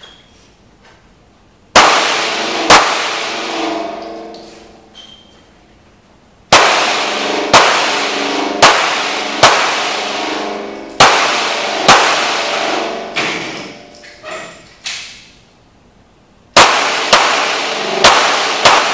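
Handgun shots fired inside a concrete-walled indoor range, each crack followed by a long echoing ring. There are two shots about a second apart, then a pause, then a run of about eight roughly a second apart, then after another pause a faster string of shots near the end.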